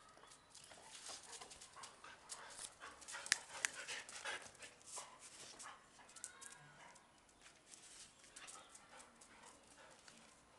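English pointers moving about on a concrete floor: scattered light clicks and scuffs of claws and paws, with two sharper clicks a little after three seconds in.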